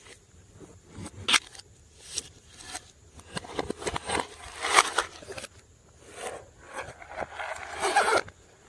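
Slime being squished and stretched by hand: irregular sticky squelches with sharp clicks and crackles.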